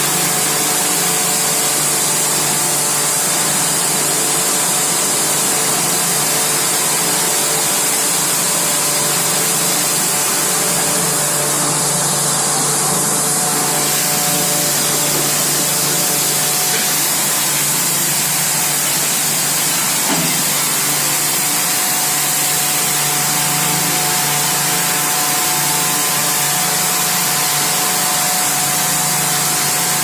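Steady hissing roar from an open blast furnace taphole as molten iron and sparks spray out, over a steady mechanical hum from the cast house machinery.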